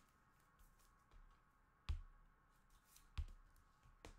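Trading cards being handled and set down on a tabletop stack: a few sharp taps, the louder ones about two seconds in, about three seconds in and near the end, over a faint steady hum.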